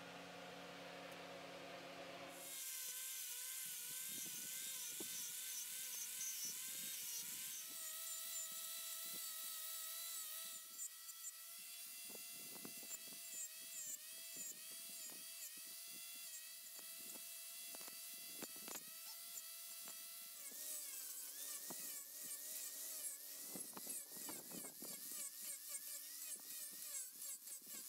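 High-speed power carving tool whining as it cuts into wood, its pitch wavering under load, with rough scraping strokes as the cutter bites. The sound changes abruptly several times, as from one cutting pass to another.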